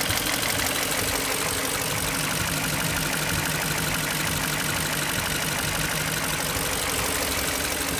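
BMW X5 engine idling steadily with a rapid, even ticking, a noise it makes after a timing job.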